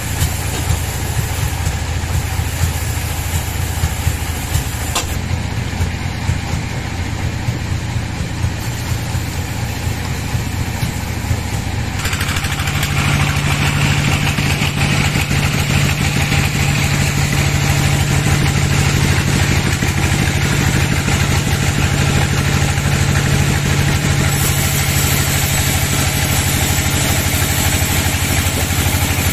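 Sawmill band saw running steadily while sawing a teak log, with a strong low hum from its drive. About twelve seconds in the sound gets louder and harsher, and it stays that way to the end.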